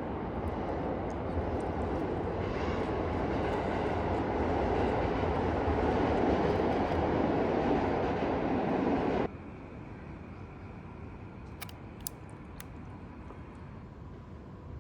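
Loud, steady rumbling noise that slowly swells and then cuts off abruptly about nine seconds in, leaving a quieter hum with a few sharp clicks.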